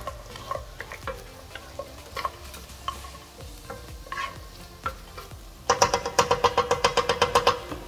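Wooden spatula stirring chunks of mutton in a pot, with scattered knocks and scrapes against the pot over a faint sizzle. Near the end comes a louder, rapid rattling run of about ten strokes a second.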